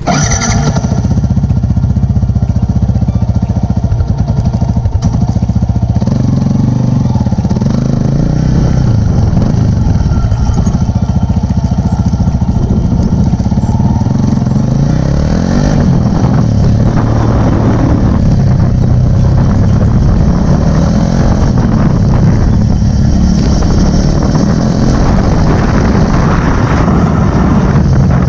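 Yamaha Sniper 150's single-cylinder four-stroke engine running loud through an R3 muffler canister on the stock Sniper elbow pipe, with the throttle opened several times so the pitch rises and falls.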